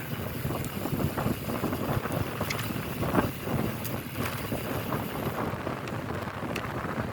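Strong wind buffeting the microphone during a bicycle ride, a steady rushing noise with scattered small clicks and ticks through it.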